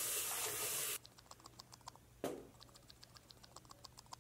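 Tap water running hard into a sink over raw chicken, cutting off suddenly about a second in. Then a single soft thud about two seconds in, over faint, rapid clicking.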